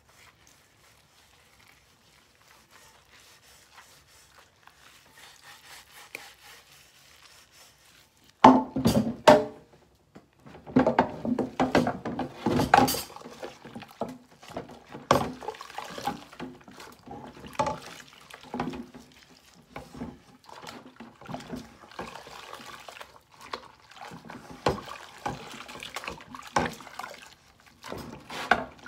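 Dishwashing at a stainless steel sink: a soapy sponge scrubs a dark pot, wet and soft at first. From about eight seconds in the pot knocks and clatters against the sink, with a few sharp loud bangs, and then keeps up irregular scrubbing and knocking.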